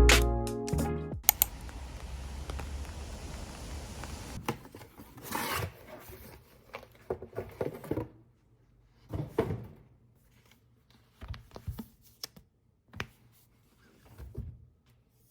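Background music ends in the first second, then a faint hiss. After that come scattered light rustles and taps of small objects being handled at close range.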